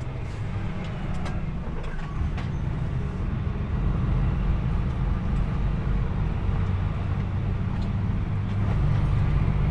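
DAF truck's diesel engine running as the truck moves slowly, heard inside the cab: a steady low rumble with a few light clicks and rattles, getting a little louder about four seconds in.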